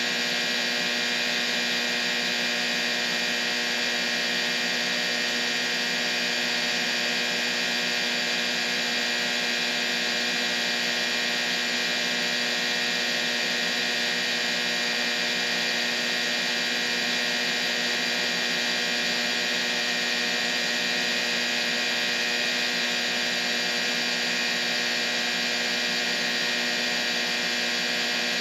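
Steady white-noise-style masking sound for tinnitus: an even hiss, strongest in the upper-middle range, with many faint steady tones running through it and almost no deep bass. It does not change at all.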